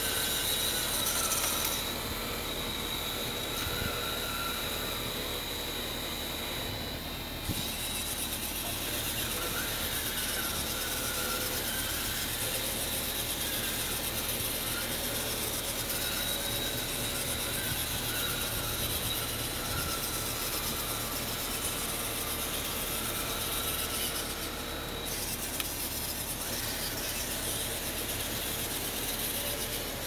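Radio-controlled hydraulic bulldozer crawling on its tracks while dragging its rear ripper through soil: a steady whine from its motors and hydraulic pump, wavering in pitch, over a continuous rattle from the tracks.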